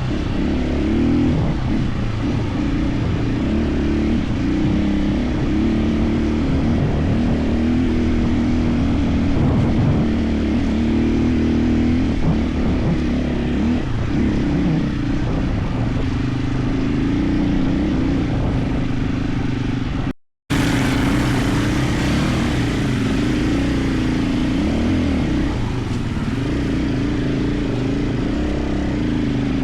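KTM 450 EXC enduro motorcycle's single-cylinder four-stroke engine running on a dirt trail, its pitch rising and falling with the throttle. The sound cuts out for a split second about two-thirds of the way through.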